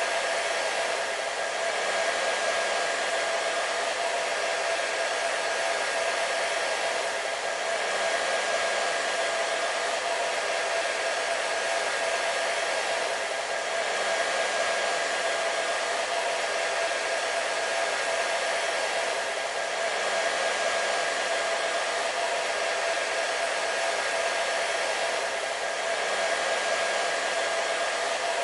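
Hair dryer running steadily: a constant airy rush with a steady motor whine, swelling slightly about every six seconds.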